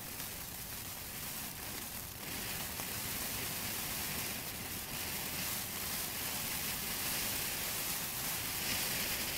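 Electrical Shock ground fountain firework spraying sparks with a steady hiss.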